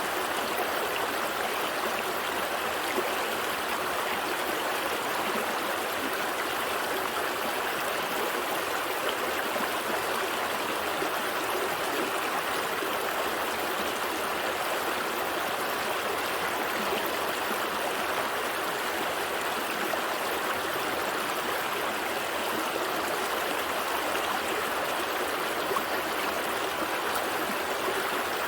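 Gentle stream flowing steadily, an even rush of water with no breaks.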